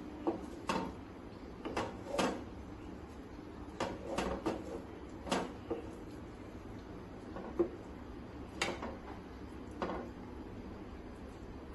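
A slotted spatula scraping cooked greens out of a frying pan and knocking against the pan and a metal bowl: about a dozen short, irregular knocks and scrapes, some in quick clusters.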